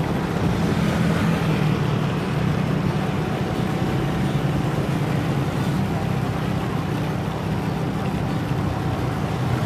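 City street traffic with a steady engine drone and road noise while travelling along the street.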